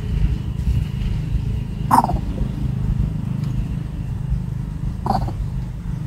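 An animal's short falling call, given twice about three seconds apart, over a steady low rumble.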